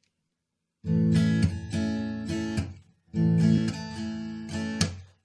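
Acoustic guitar strumming chords as the intro of a song, starting about a second in, in two phrases with a short break between them.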